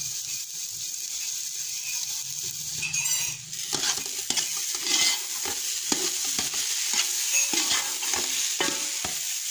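Semolina roasting in a steel pot with a steady sizzling hiss, grated carrot being stirred in. From about four seconds in, a metal spoon scrapes through the mixture in quick repeated strokes.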